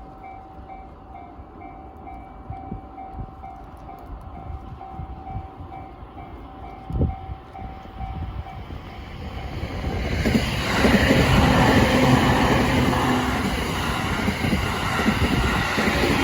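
JR-standard electronic level-crossing bell ringing as a rapid, repeating ding. It stops about nine seconds in, and about a second later a train passes the crossing loudly, with a steady rumble and rush of wheels on rail.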